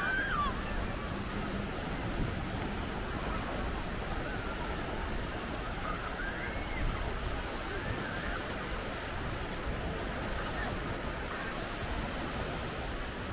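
Caspian Sea surf washing steadily onto a sandy beach, with faint distant voices now and then.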